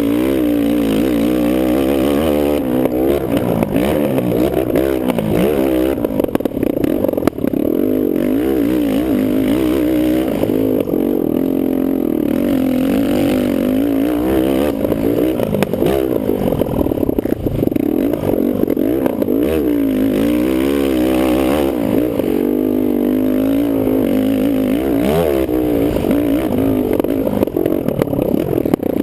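Kawasaki KFX450R quad's single-cylinder four-stroke engine running hard, its revs rising and falling over and over as it accelerates and backs off.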